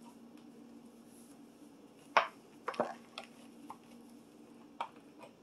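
A few light clicks and knocks of kitchen items being handled at the stove, the sharpest about two seconds in, over a steady low hum.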